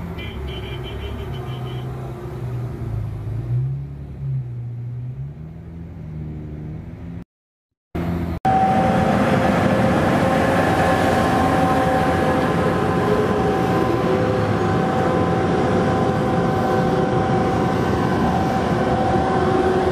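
Diesel engine of a loaded Caterpillar 777E haul truck pulling away, its pitch rising and falling. After a brief dropout about seven seconds in, a louder steady drone with several held tones takes over.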